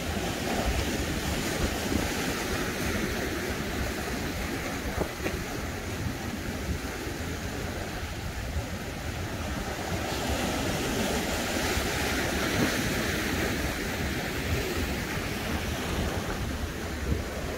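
Ocean surf washing and breaking over shoreline rocks in a steady wash, with wind buffeting the microphone.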